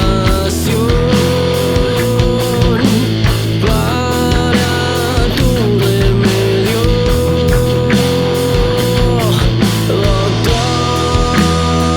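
Rock band playing: distorted electric guitars, bass guitar and drums, with a steady drum beat under a long held melody line that bends up and down.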